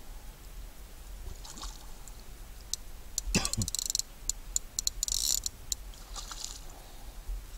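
Hooked carp splashing at the surface beside a landing net: several short splashes, with scattered sharp clicks and a brief falling squeak about three seconds in.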